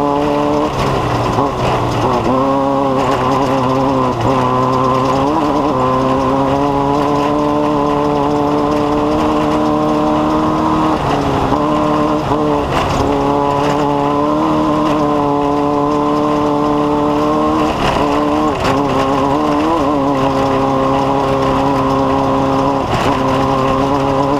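Race vehicle's engine running hard under load in a desert off-road race. Its pitch holds fairly steady, then dips briefly and climbs back several times as the throttle lifts and comes back on.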